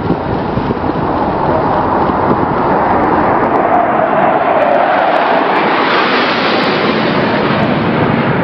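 Jet aircraft flying low and close past a ship, its engine noise swelling over the first few seconds and then holding loud, with a pitch that dips slightly around the middle as it goes by.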